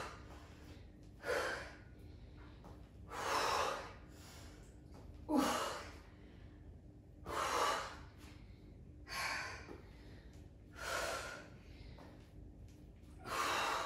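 A woman breathing hard during a strenuous workout: a forceful, hissing exhale about every two seconds, in time with the exercise.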